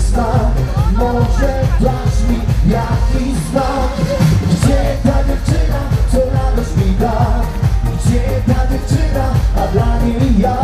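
Live disco polo song played loud through a concert PA, with a steady dance beat and singing, heard from the audience.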